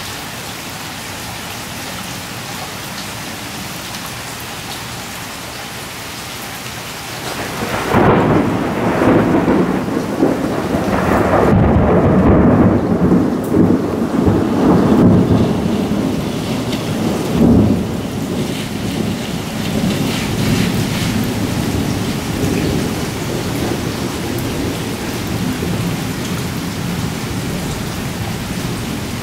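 Heavy rain falling steadily on pavement and puddles. About eight seconds in, a loud thunderclap breaks out and rumbles for roughly ten seconds with several sharper peaks, then fades back under the rain.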